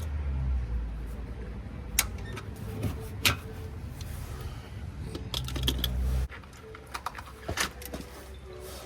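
Metal hand tools clinking and being handled: a few sharp clicks and rattles over a low steady hum that cuts off suddenly about six seconds in.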